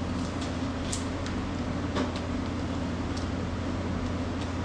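Steady low mechanical hum, like a refrigeration or ventilation unit, with a few light clicks and taps scattered over it.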